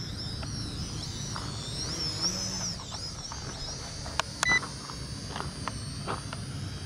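Small quadcopter drone in flight, its propellers whining high, the pitch rising and falling as it is steered. A short beep with a couple of sharp clicks about four and a half seconds in, and a few more clicks after.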